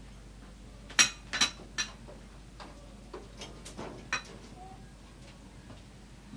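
A spoon clicking and scraping against a plastic bowl and a plate as rice is scooped out and served: a string of sharp clicks, the loudest about a second in, with several more over the next three seconds.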